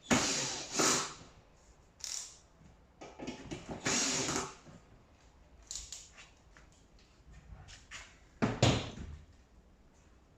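Tumble dryer parts being handled and fitted: a series of knocks, scrapes and rattles. The loudest come right at the start, from about three to four and a half seconds in, and again around eight and a half seconds, with small clicks between.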